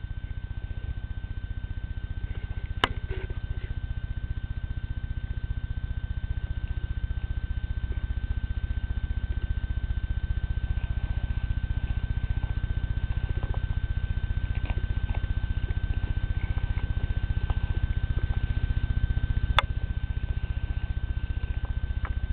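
A cat purring steadily, a low, fast, even pulsing hum, with a sharp click twice.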